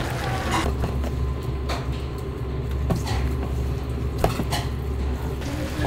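Kitchen prep noises: about half a dozen scattered knocks and clatters of utensils and containers, the sharpest a little past four seconds in, over a steady low machine hum.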